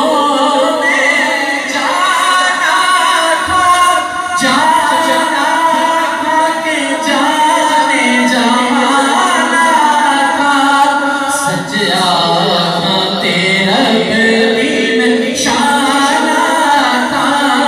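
Unaccompanied naat: a male reciter sings a devotional Sufi chant into a microphone, heard through a loudspeaker system, with the gathering's voices joining in. There are no instruments.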